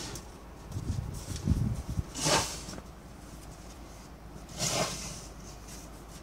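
A child's small snow shovel scraping over snow and pavement: two short scrapes about two and a half seconds apart, after a few low thumps in the first two seconds.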